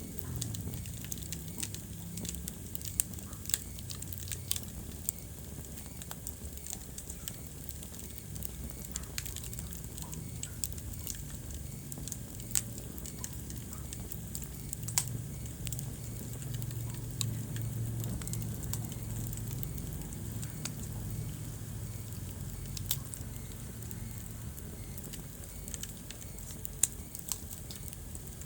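Wood fire crackling in a fireplace: frequent small snaps and a few louder pops over the low, steady rumble of the flames.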